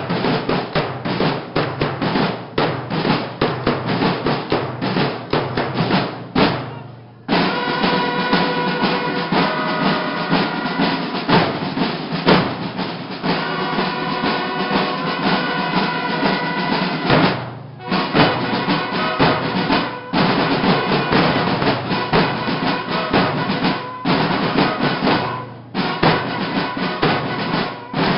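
School drum and bugle corps (banda de guerra) playing. Snare drums beat a dense cadence alone for about the first six seconds. After a short break, bugles sound over the drums, with brief pauses between phrases.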